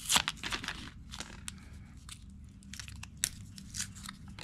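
Plastic packaging crinkling and crackling with scattered small clicks, as the tire pressure sensors and their batteries are unwrapped and handled.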